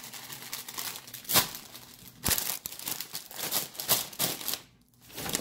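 Plastic grocery packaging crinkling and rustling as it is handled, in irregular crackles with a couple of sharper, louder ones, going quiet briefly near the end.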